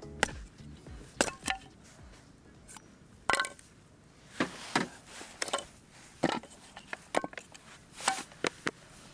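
Metal camping gear being handled: about ten irregular knocks and clinks, some ringing briefly.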